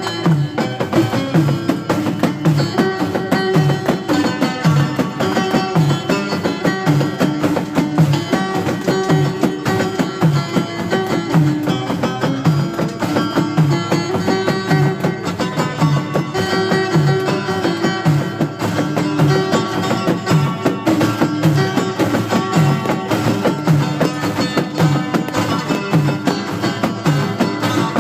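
Live traditional folk music: drums keep a steady, even beat under melodic instruments playing throughout.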